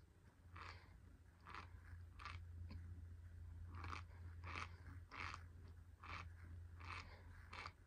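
Faint chewing of a mouthful of dry cornstarch, with soft crunches about once every three-quarters of a second.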